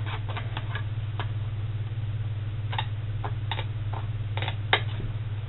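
Scissors snipping through thick 120-weight cardstock: short, irregular clicks a few at a time, over a steady low hum.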